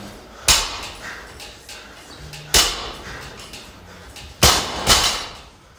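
Barbell loaded with rubber bumper plates, lifted and then dropped: a sharp clank about half a second in and another about two and a half seconds in as the bar is cleaned, then a heavier thud near the end with a quick second hit as the bar is dropped to the rubber floor and bounces.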